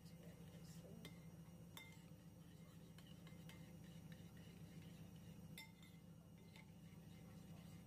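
Metal spoon stirring a runny spiced marinade in a ceramic bowl, giving a handful of faint light clinks against the bowl, spaced a second or more apart, over a low steady hum.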